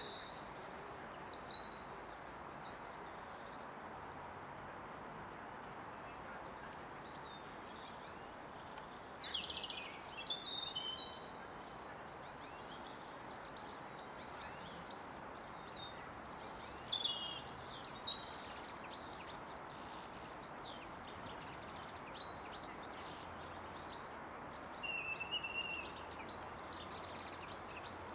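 Small birds chirping and calling in short clusters of quick, high notes, over a steady background hum of outdoor noise.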